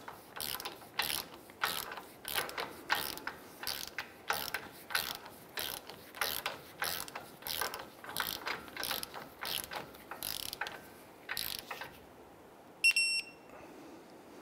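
Ratcheting torque wrench clicking through its strokes, about two clicks a second, as the outer tie rod end's castle nut is tightened down to torque and angle. The clicking stops near the end, and a single short high-pitched electronic beep follows; it is the loudest sound here.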